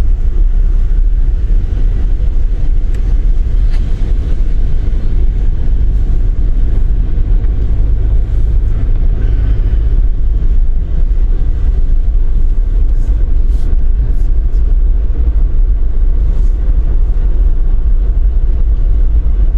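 Steady low road rumble inside a moving truck's cabin.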